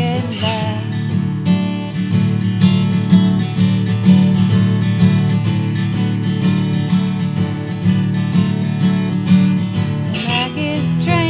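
Acoustic guitar music: an instrumental passage of steady, evenly pulsed strummed chords in a country style.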